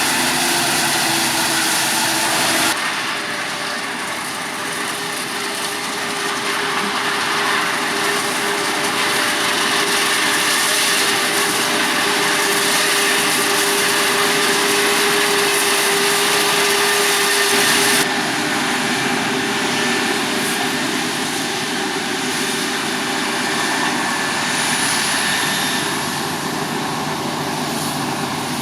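Heavy farm machinery running steadily at work in a maize harvest, a dense engine and machine noise with a steady hum. The sound changes abruptly twice, about three and eighteen seconds in.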